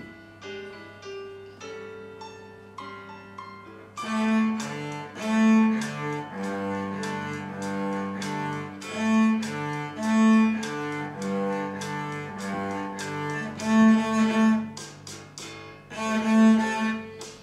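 Cello played by a child, bowing a simple tune over a piano accompaniment. The accompaniment plays alone for about the first four seconds, then the cello comes in, louder, with sustained bowed notes.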